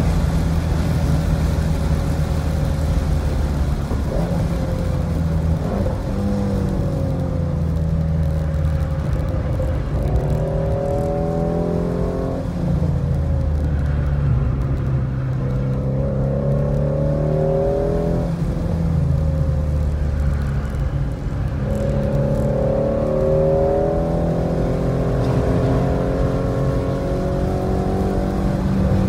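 2017 Ford Mustang's engine heard from inside the cabin, pulling hard at high revs on a race track. Its pitch climbs and breaks off several times as it shifts up through the gears and lifts and downshifts for corners.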